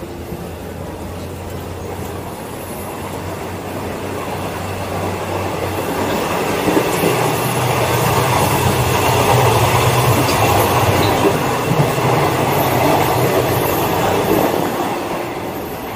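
Running noise of a moving KTMB passenger train: wheels on the rails and the rattle of the carriages. It swells to its loudest in the middle, heard from the gangway between two carriages, then eases off as the next carriage is entered.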